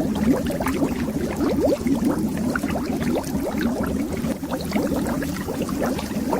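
Continuous underwater bubbling, a dense stream of small bubbles each giving a short rising blip over a low rumble.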